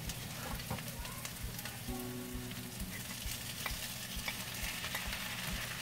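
Onions and garlic frying in hot oil in a wok, a steady sizzle, with light clicks of chopsticks as sliced raw beef is pushed in from a glass dish.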